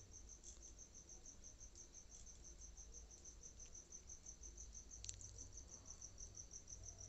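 Faint cricket chirping in an even, fast pulse, about six high chirps a second, with one faint click about five seconds in.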